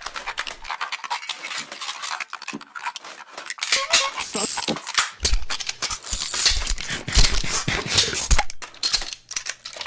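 A dense, busy clatter of clicks and metallic clinks, with a few heavy thumps in the second half.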